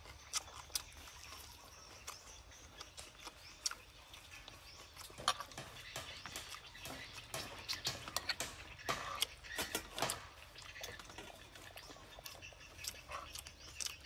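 Close-up eating sounds: irregular wet chewing and lip smacks on grilled chicken, mixed with a metal spoon tapping and scraping on the plate.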